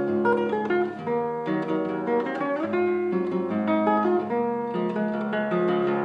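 Background music played on acoustic guitar, a steady run of plucked notes and strums.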